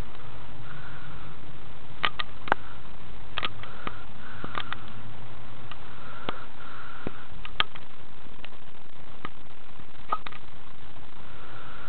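Steady hiss of a small camera's built-in microphone, with about a dozen small clicks and taps scattered through it.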